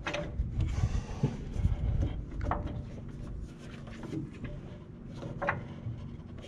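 A 27-inch rubber drive belt being worked by hand onto a hydraulic pump's pulley while the pulley is turned: soft rubbing and handling with a few scattered light knocks.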